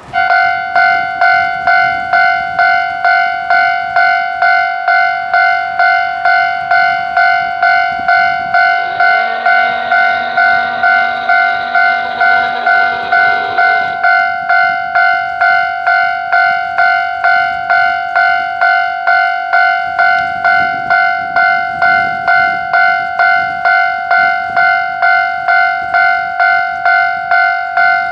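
Japanese level-crossing alarm bell ringing in a steady, even beat, a little under two strikes a second. About nine seconds in, a horn, plausibly the DE10 diesel locomotive's, sounds over it for about five seconds and then stops.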